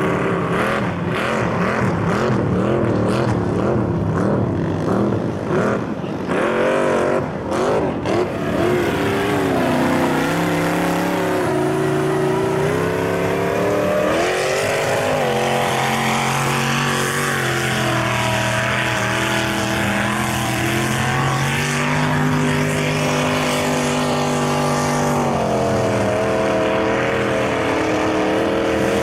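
Mud bog trucks' engines revving hard at high rpm as the trucks plow through a deep mud and water pit. The pitch rises and falls in the first half, then holds high and fairly steady.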